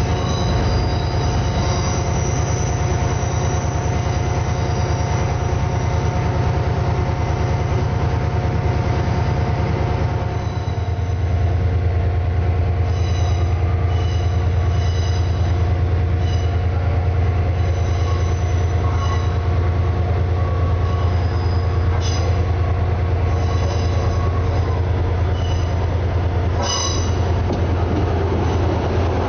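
Train at a station: a steady low drone, with high-pitched wheel squeal coming and going. The low drone gets louder about ten seconds in.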